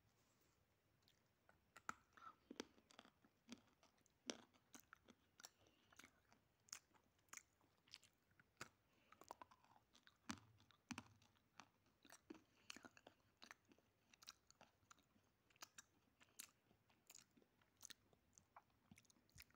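Crunchy biting and chewing of chalky dry clay chunks, heard close up. A run of irregular sharp crunches starts about two seconds in and keeps going, a few every second.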